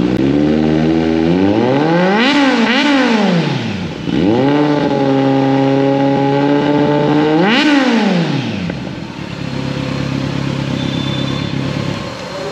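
Kawasaki Z900's inline-four engine revved on the stand: two quick throttle blips about two seconds in, then a held rev through the middle ending in another sharp blip, after which it settles to a steady idle.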